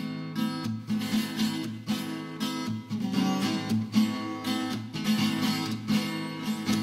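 Background music: an acoustic guitar strummed and picked in a steady rhythm.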